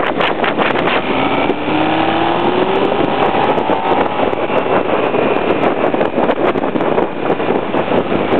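Motorcycle engine running at road speed under heavy wind buffeting on the microphone; between about one and four seconds in the engine note rises as the bike accelerates out of a bend.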